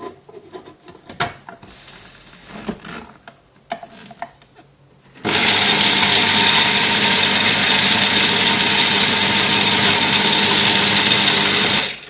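Plastic clicks and knocks as the food processor's lid and feed-tube pusher are fitted, then about five seconds in the Arçelik Roboset food processor's motor starts and runs steadily, its blade grinding roasted peanuts into peanut butter, until it is switched off at the very end.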